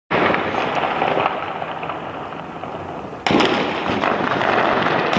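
Heavy gunfire in a street battle, a dense crackling that goes on without a break, with a sudden louder burst of fire about three seconds in.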